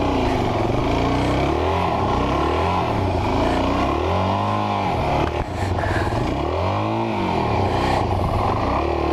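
Adventure motorcycle engine running under way on a rough dirt forest road, its revs rising and falling with the throttle, with two clear swells up and back down near the middle.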